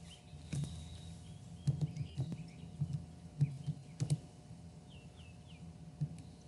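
Faint, scattered clicks of computer keys being typed, about eight in all, each with a small low thump. Three short, high, falling chirps come about five seconds in.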